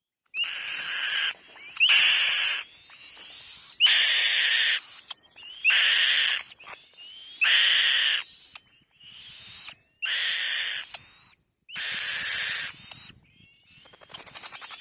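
Harsh, raspy screeches from a bird, about seven of them, each just under a second long and repeated every one to two seconds. A softer, rapidly pulsing call follows near the end.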